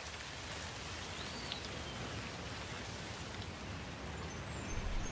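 Steady rain falling, with one faint short chirp about a second in.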